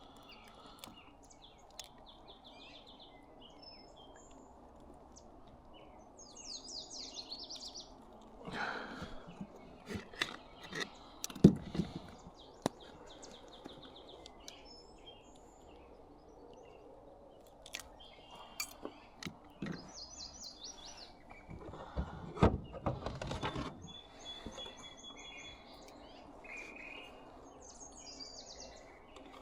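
Birds chirping and trilling again and again over a low steady background, with a few knocks and rustling bursts now and then, the sharpest about eleven seconds in.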